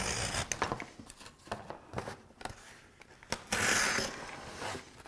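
Utility knife slicing through cardboard: scratchy cutting strokes with small clicks, the loudest stroke about three and a half seconds in.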